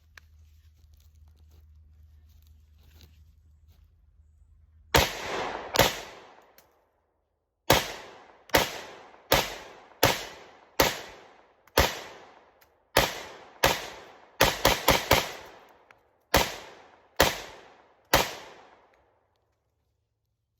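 Glock 20 10mm pistol in an MCK 2.0 carbine chassis firing about seventeen semi-automatic shots, starting about five seconds in, mostly at a steady pace with a quick run of four near the middle; each shot has a ringing echo.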